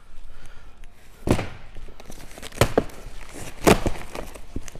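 Cardboard boxes being handled and set down: several sharp knocks and thumps, with cardboard rustling between them.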